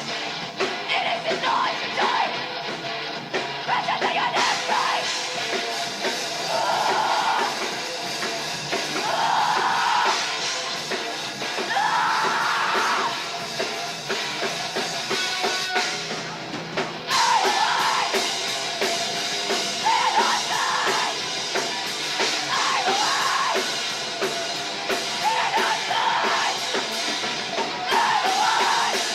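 Live heavy rock band playing: drums and instruments with shouted vocals in repeated phrases. The band briefly drops back about sixteen seconds in, then comes back in full.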